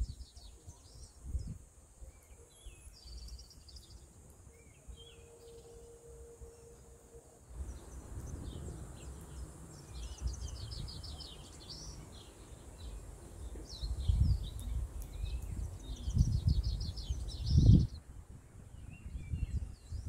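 Several small birds chirping and trilling in a forest, with gusts of wind buffeting the microphone, the strongest just before the end.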